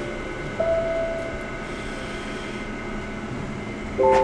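Background music of slow, held electronic chords, with the notes changing about half a second in and again near the end.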